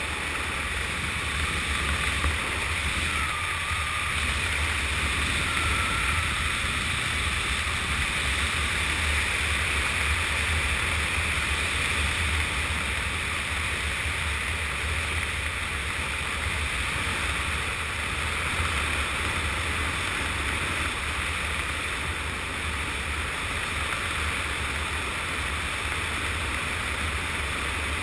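Steady wind buffeting the helmet camera's microphone during a parachute descent under canopy: a constant low rumble with a rushing hiss over it.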